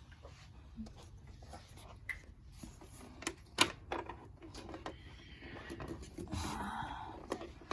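Faint handling sounds in a small room, with a few sharp clicks and knocks grouped a little past the middle.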